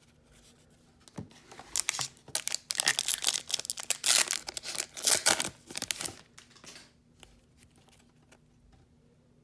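Plastic trading-card pack wrapper being torn and crinkled: a dense run of crackling and tearing from about a second in until about six seconds in, then only faint handling.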